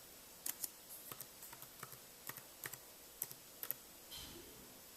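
Typing on the keyboard dock of an ASUS Eee Pad Transformer TF101: scattered, unevenly paced key clicks, fairly faint.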